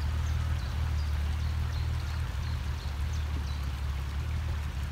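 Off-road vehicle engine running with a steady low drone, under an even rushing noise like flowing water.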